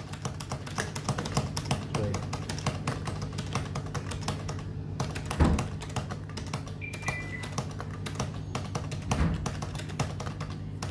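Rapid, irregular clicking of illuminated arcade-style push-buttons on an electronic code-breaking game console as several players press them in quick succession, with a few heavier knocks and a brief high beep about seven seconds in.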